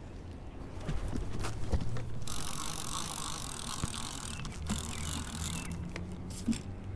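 Baitcasting reel's clicker ratcheting rapidly as a catfish takes line from the rod in its holder: the sign of a bite. The clicking starts about two seconds in and runs on steadily.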